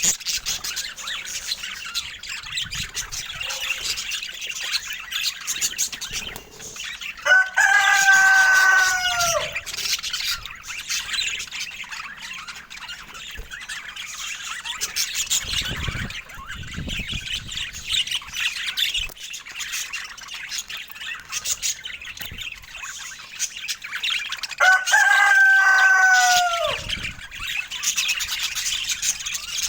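Budgerigars chattering and chirping without a break. Twice, about eight seconds in and again near the end, a much louder long call is held for about two seconds and drops in pitch at its end.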